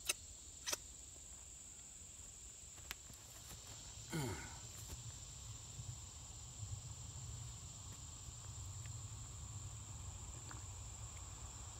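Insects chirring steadily and high-pitched, with a low hum of road traffic underneath. Two sharp clicks come near the start, and a short falling sound about four seconds in.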